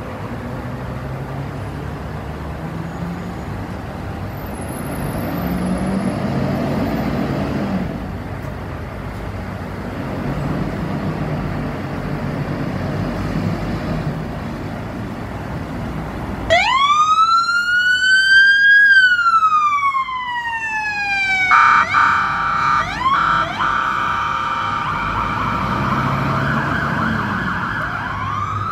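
Fire engine turning out. For the first half there is only road traffic and engine noise. About 16 seconds in its electronic siren starts with one long wail that rises and then falls, then switches to a harsher bullhorn tone with a few short blasts, and near the end a siren rises again.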